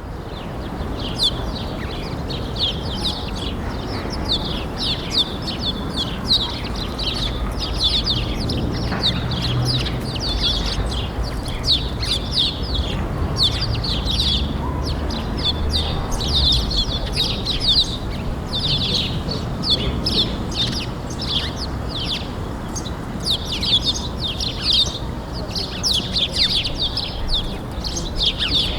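Songbirds chirping in a continuous stream of short, quick calls, over a steady low rumble of background noise.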